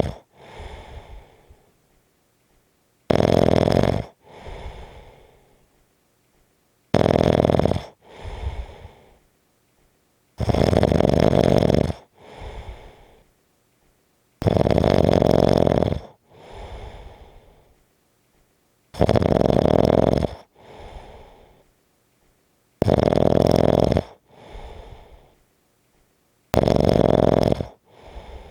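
Rhythmic snoring. A loud, harsh snore about a second and a half long comes about every four seconds, each followed by a softer, fading breath out, seven times over.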